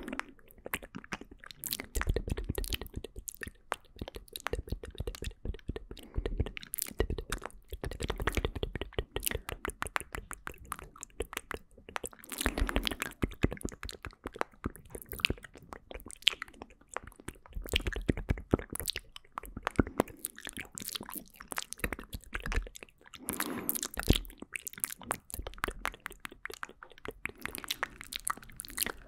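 Close-up wet mouth sounds: a dense, fast run of clicks and smacks right at the microphone, with soft low swells every few seconds.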